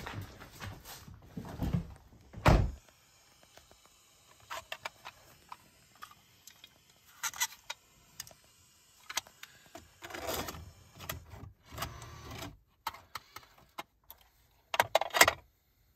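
A car door shuts with a heavy thunk about two seconds in, followed by quiet handling noises: rustling and small clicks as a cassette is taken from its case, with keys jangling. Near the end, a quick cluster of sharp mechanical clicks as the tape goes into the car's cassette radio.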